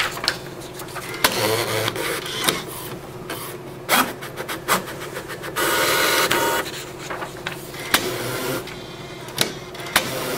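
Portable inkjet printer clearing a cancelled print job: a string of clicks and short whirring runs from its paper feed and carriage as it pulls a sheet through. A longer, louder run comes about six seconds in, as the sheet is pushed out.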